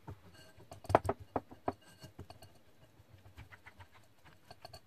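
Spatula pressing and scraping wet batter through a stainless steel mesh sieve: irregular scrapes and clicks against the metal mesh and rim, the loudest few about a second in.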